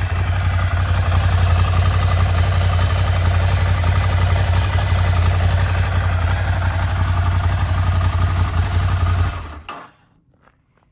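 Ducati Monster 797's air-cooled L-twin idling steadily through its stock exhaust, then shut off about nine and a half seconds in.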